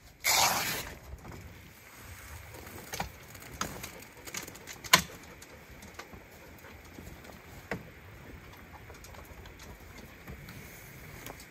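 Rooftop tent being opened: a burst of rustling as its vinyl travel cover is pulled off, then a few sharp clicks and knocks, the loudest about five seconds in, as the tent folds open on its metal ladder.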